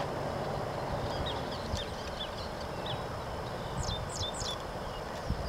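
Outdoor field ambience over open grassland: steady low wind noise on the microphone, with birds chirping in short high notes throughout and a quick run of rising calls about four seconds in.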